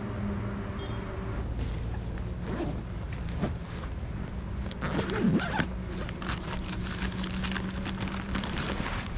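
Zipper on a nylon bag being pulled open by hand in several short scratchy strokes, with the fabric rustling.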